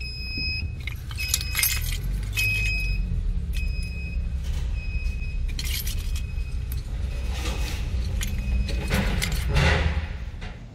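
A car's engine rumbling low, heard from inside the cabin as the car creeps into a garage, with a few short high beeps in the first three seconds and repeated jangling clatter throughout. The rumble drops away near the end.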